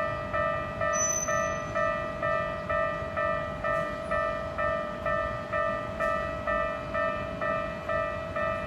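Japanese railroad crossing warning alarm on the Keikyu line ringing its 'kan-kan' tone, a single repeated pitched ding at about two strikes a second.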